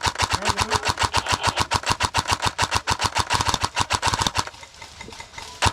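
Airsoft rifle firing on full auto, about a dozen shots a second in one long burst that stops a little over four seconds in, then a second burst starting near the end.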